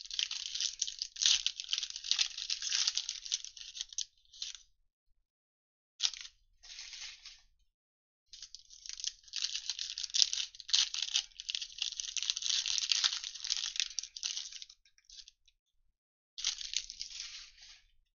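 Foil wrapper of a trading-card pack crinkling and tearing as hands peel it open, in long stretches of crinkling with short breaks between.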